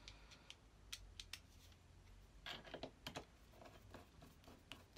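Faint, scattered light clicks of a screwdriver turning the screws that hold the frog into the cast-iron body of a Record No. 5 hand plane, with a small cluster of clicks a little past halfway.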